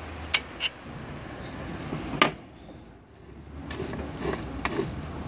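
Metallic clicks and clunks from the shift rails and forks of an opened manual gearbox as the floor gear lever is worked through the gears. There is a louder clack about two seconds in and a run of lighter clicks near the end.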